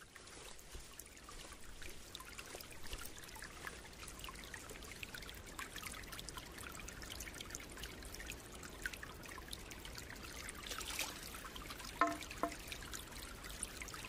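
Faint trickling water in a nature soundscape, with scattered light ticks and clicks throughout.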